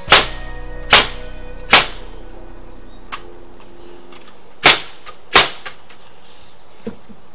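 Hammer blows: five sharp strikes, three about a second apart, then two more close together about three seconds later. Soft background music plays underneath.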